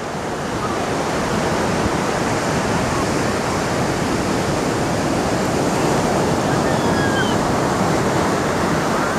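Steady rush of ocean surf mixed with wind buffeting the microphone, swelling over the first second and then holding even.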